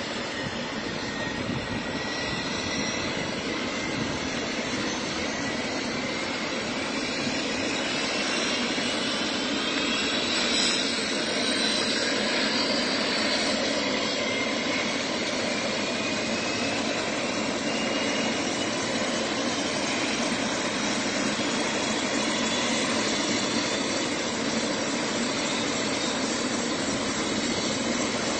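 Turbine medical helicopter running on the helipad, rotors turning: steady engine and rotor noise with a turbine whine that rises in pitch and grows a little louder over the first dozen seconds, then holds steady as it spools up before departure.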